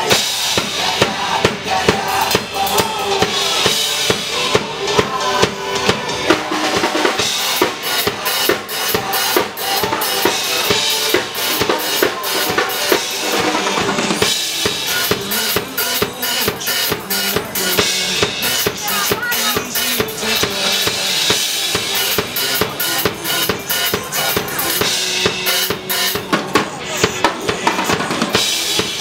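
Acoustic drum kit played live in a steady rock beat, with kick drum, snare and cymbals, over a recorded rock song.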